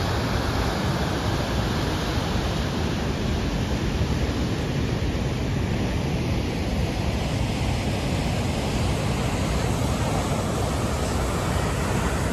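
Ocean surf breaking and washing up the shore as a steady, unbroken rush of waves and foam.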